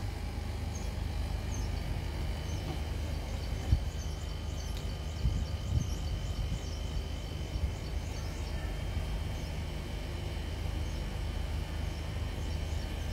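A bird chirping over and over in short high calls above a steady low outdoor rumble, with a couple of brief knocks about four and five seconds in.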